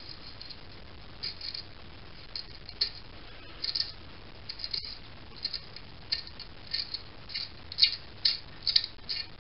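Gritty, crunchy squeaks from a small threaded fitting being turned out by hand from a brass model steam-engine boiler, its threads crusted with limescale. The short scrapes come about once or twice a second, getting closer together and louder in the second half.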